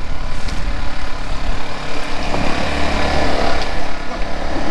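Small engine running steadily, the generator powering the electrofishing gear that stuns fish through the water, with faint voices in the background.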